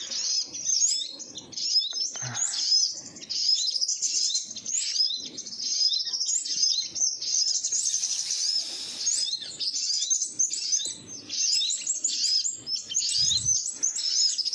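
Small songbirds chirping without a break: a dense string of short, high-pitched notes, many of them quick rising or falling chirps. About eight seconds in there is a brief hiss.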